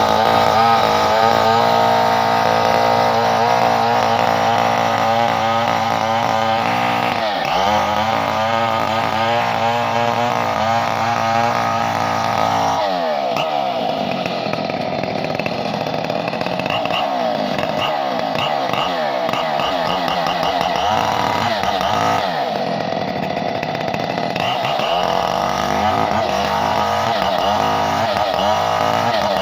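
Chainsaw engine running at high speed, holding a steady pitch for the first half. From about halfway through its speed repeatedly drops and picks back up.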